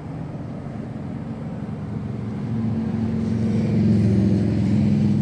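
Honeybees buzzing around an open hive frame, a dense low hum that swells louder through the first few seconds.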